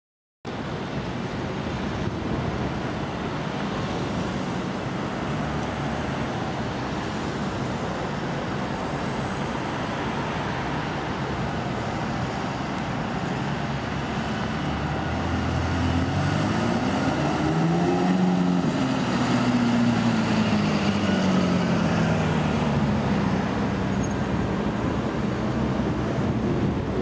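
Ferrari California V8 engine in city traffic: over the steady traffic noise, its note climbs for a few seconds past the middle, then falls away as it accelerates off.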